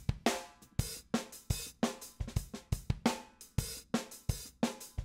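Sampled acoustic drum kit from the Drum Tree library playing a steady jazz-funk groove of kick, snare and hi-hat, with a dry sound and a snappy snare.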